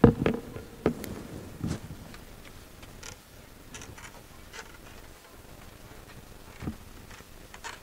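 Scattered knocks and light taps in a quiet hall: a few sharp ones in the first two seconds, then sparse clicks.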